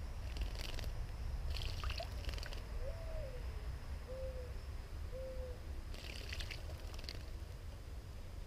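Female Summer Tanager splashing in a birdbath, in three short bouts of bathing. A low hooting bird call of four notes about a second apart sounds in the background midway.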